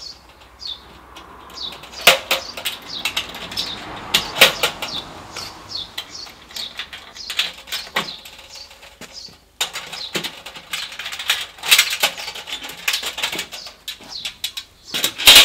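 Metal clanks and knocks from the steel barrel sections of a ProQ bullet smoker being handled and stacked, the loudest clank near the end. Birds chirp in the background.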